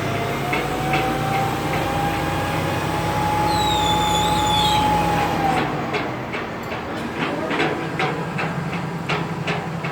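Crane truck running as it hoists a load: a steady low engine hum with a whine above it that rises slowly and then falls away about halfway through, followed by scattered clicks. Birds chirp briefly.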